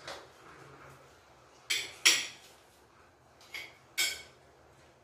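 Spoons clinking against ceramic plates and bowls at a meal table: four sharp clinks in two close pairs, the second clink the loudest.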